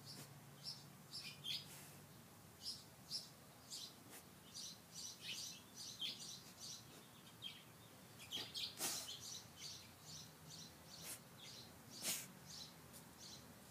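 Small birds chirping and tweeting repeatedly, faint, with two louder, sharper sounds about two-thirds of the way in and near the end.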